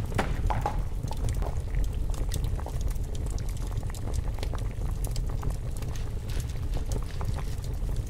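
Water boiling in a pot, bubbling steadily over a low rumble, with many small pops and clicks scattered throughout.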